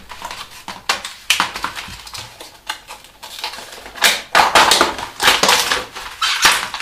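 Packaging being opened and handled: irregular crinkling and rustling with sharp clicks, busiest in the second half.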